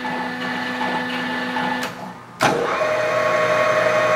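Leblond Makino servo-shift engine lathe running with a steady gear whine. About two seconds in there is a click and a brief dip, then a second click, and it comes back louder with a different whine: the spindle speed being changed.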